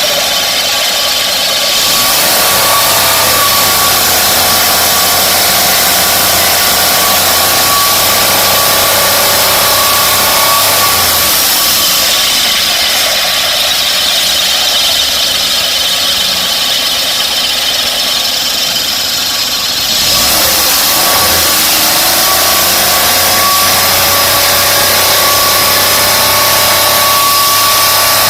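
Car engine idling with an abnormal noise from its air-conditioning compressor. The sound is steady but changes character about two seconds in, near twelve seconds and near twenty seconds, with a short gliding whine after the first and last changes.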